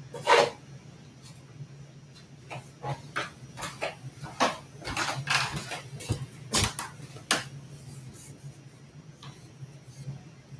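Objects being handled and set down while tidying: a sharp knock right at the start, then a run of clicks, taps and rustling in the middle that stops about three quarters of the way through.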